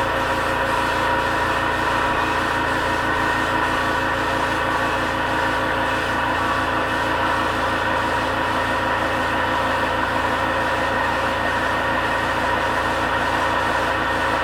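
Homemade tankless air compressor, supplying air directly, running with a steady hum.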